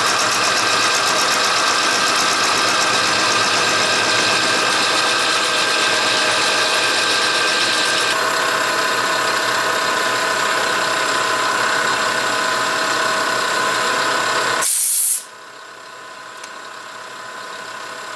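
Milling machine cutting steel flat bar, a loud steady machining noise with several steady tones that shift about eight seconds in. Near the end a brief loud burst of noise, after which it drops to a much quieter steady hum.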